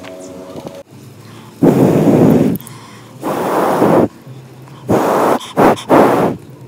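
Someone blowing hard into smouldering charcoal in a clay charcoal stove to get it glowing: five breathy blows, the first two long, the last three short and quick.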